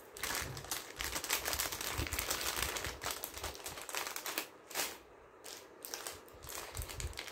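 Packaging crinkling and rustling in the hands, busiest for the first four seconds, then a few shorter crackles.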